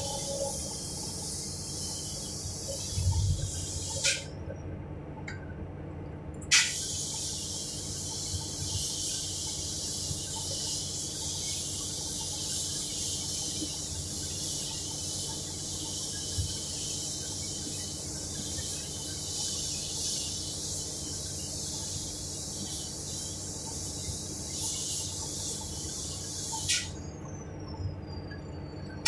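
Excavator's diesel engine running steadily, heard from the cab, with a steady hiss over it and a few short knocks and clicks.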